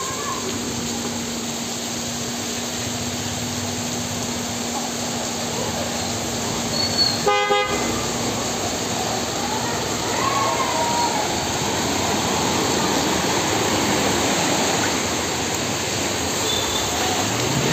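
Heavy rain hissing steadily over a flooded street, with a vehicle horn honking once, briefly, about seven seconds in.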